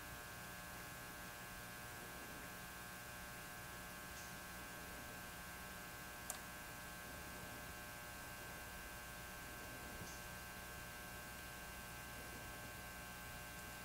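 Faint, steady electrical hum with a thin high whine made of several steady pitches; a single small click about six seconds in.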